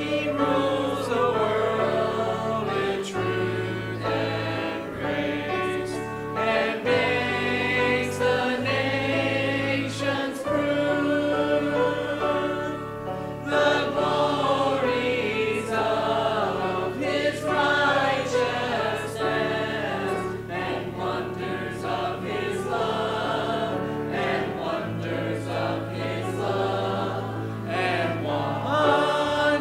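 Church choir of mixed men's and women's voices singing a hymn together over sustained low accompaniment notes.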